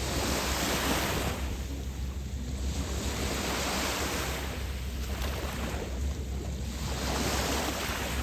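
Waves washing onto a beach, a fresh surge of surf about every two seconds, over a steady low rumble of wind on the microphone.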